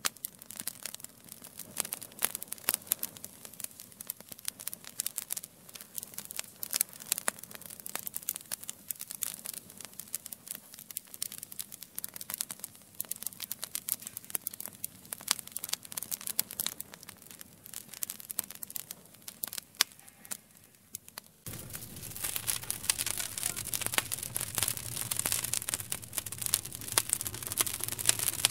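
Wood fire crackling, with many sharp pops and snaps. About two-thirds of the way through it turns suddenly louder and denser, with a steady low rush of flames under the crackle.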